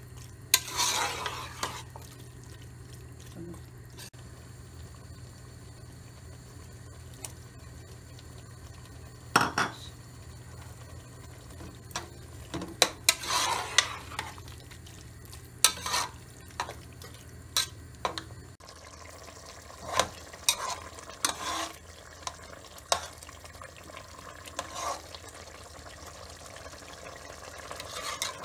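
Metal spoon stirring potato, mince and pea curry in a metal pot, with scattered scrapes and knocks against the pot and a soft sizzle underneath. A steady low hum in the background stops about two-thirds of the way through.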